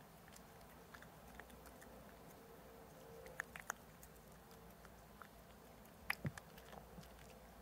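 Grey tabby cat chewing a chicken strip treat: faint, scattered crunching clicks, with a few louder bites about three and a half and six seconds in.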